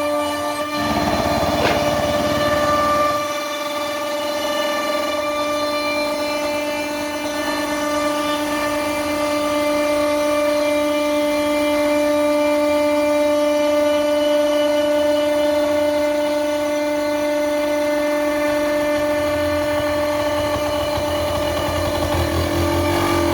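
CNC router spindle whining steadily at one pitch while the bit cuts plywood, with a rougher, louder cutting noise about a second in for two seconds and again near the end.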